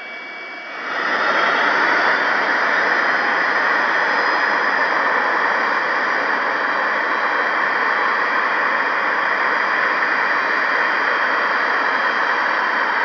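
Antonov An-225's six Progress D-18T turbofan engines running: steady jet engine noise with a faint high whine on top, swelling in about a second in.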